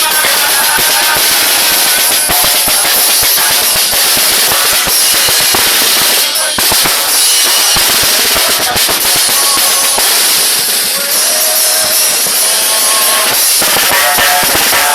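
Murga percussion section playing loudly: a steady beat of bass drum, cymbals and snare drum, with group singing over it.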